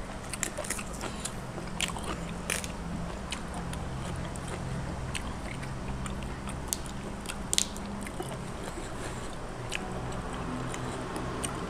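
A person chewing food close to the microphone, with many short, sharp crunches and clicks scattered through, over a low, steady hum.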